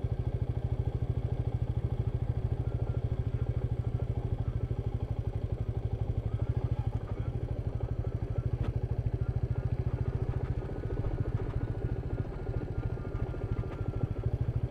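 Royal Enfield Meteor 350's single-cylinder engine running steadily under way on a dirt track, with an even rapid beat; it eases off a little about seven seconds in and drops lower from about ten seconds in.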